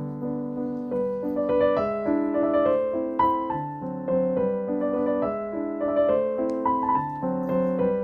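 Background piano music: a gentle keyboard melody over chords.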